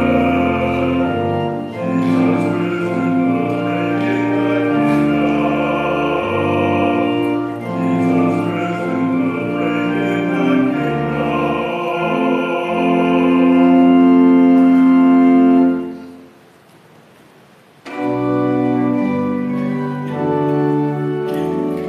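Church organ playing slow music in held chords. A phrase ends about 16 seconds in, and after a pause of about two seconds the playing starts again.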